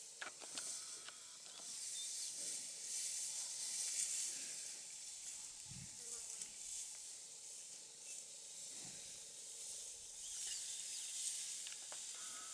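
Outdoor bush ambience: a high hiss that swells and fades, with a few faint bird chirps and one short low sound about six seconds in.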